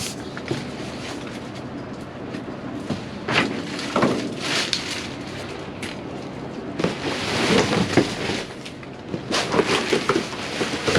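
Trash bags and cardboard boxes being shifted and rummaged through in a dumpster: bursts of rustling and crinkling, a few seconds in and again later and near the end, over a steady hiss.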